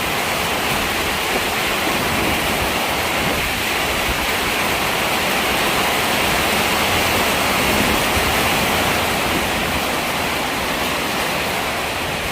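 Heavy rain falling in a storm: a loud, steady hiss with no pauses.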